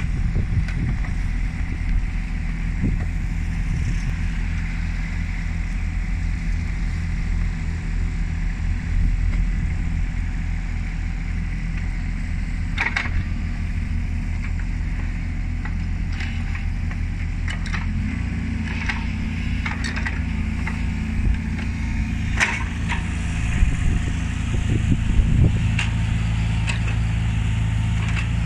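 Kubota U25 mini excavator's diesel engine running steadily while the hydraulics work the boom and swing the upper structure. The engine note changes about two-thirds of the way through, and there are occasional sharp clanks.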